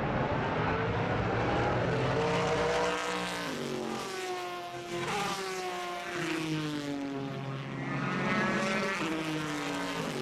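Race car engines at a distance, several overlapping, their pitch climbing under acceleration and dropping sharply at gear changes.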